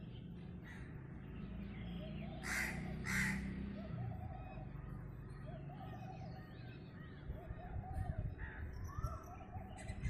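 A crow caws twice, loud and harsh, a little over half a second apart, about two and a half seconds in. Smaller birds keep up short repeated calls throughout, over a low background rumble.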